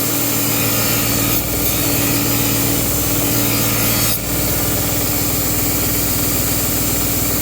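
Belt grinder running with a knife blade held against the belt: a steady grinding hiss over the motor's hum, with the lowest hum tone dropping away about four seconds in.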